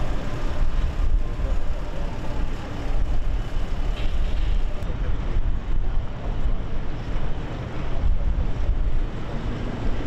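Wind buffeting the microphone over a steady low rumble, with gusty rises and falls in level.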